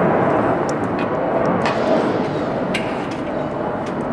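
Steady, loud roar of running flightline machinery, with a few faint sharp clicks over it; it cuts off abruptly at the very end.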